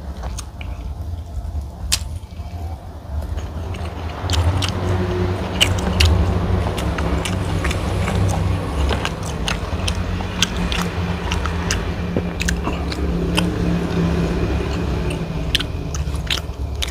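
Close-miked chewing and wet mouth clicks from someone eating biryani rice by hand, scattered sharp clicks throughout, over a steady low rumble.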